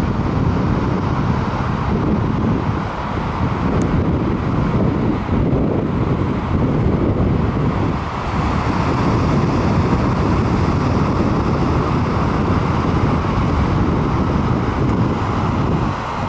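Steady wind buffeting the microphone, over the continuous wash of surf breaking against rocks below.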